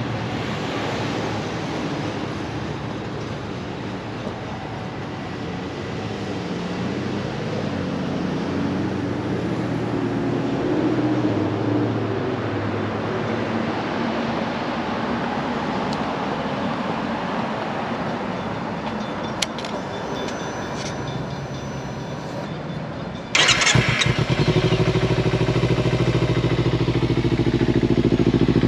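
Outdoor traffic and wind noise for about twenty seconds, then a Kawasaki Ninja 300's fuel-injected parallel-twin is cranked on its starter, catches suddenly and settles into a steady idle through a Danmoto aftermarket exhaust.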